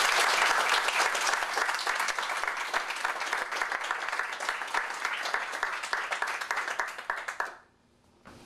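A group of people clapping their hands: steady applause that thins out and stops about seven and a half seconds in.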